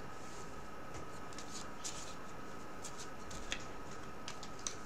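Faint scattered clicks and rustles of trading cards being handled, over a faint steady tone in the background.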